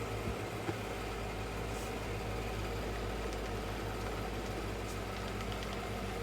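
Tender-drive OO gauge model locomotive running slowly on DC: a steady small electric motor hum with the wheels running along the track, and a few light clicks near the end. The axle slots are freshly cleaned and lightly oiled, and it runs smoothly.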